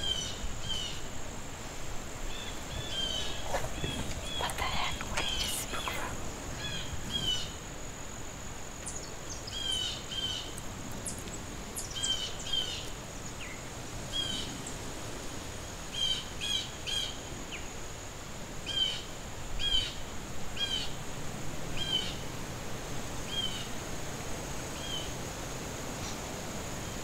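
A steady high-pitched drone of crickets or similar insects runs throughout. Over it, a bird repeats short chirps every second or two, often in pairs, with a busier flurry of calls about five seconds in.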